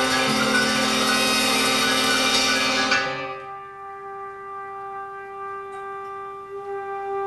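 A big band playing a loud full-ensemble passage that cuts off about three seconds in, leaving one long held note that swells again near the end.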